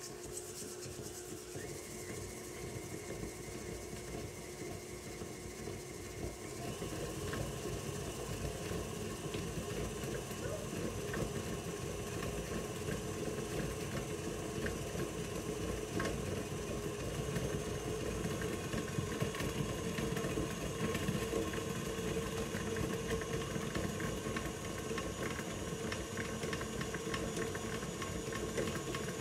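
Electric stand mixer running steadily, its paddle beater creaming butter and sugar in a stainless steel bowl. Its motor whine jumps higher and gets louder about six and a half seconds in.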